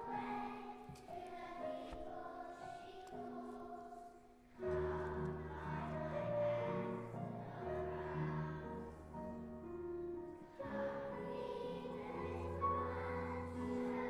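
Children's school choir singing a song together in held, sustained notes. About four and a half seconds in, after a brief lull, low accompaniment notes come in beneath the voices.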